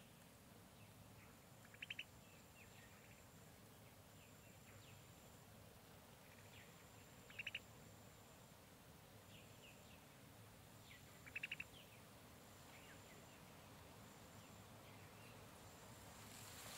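Faint tropical forest ambience with a bird calling three times a few seconds apart, each call a quick run of a few rapid notes. Softer chirps are scattered between, over a faint high steady tone that comes and goes.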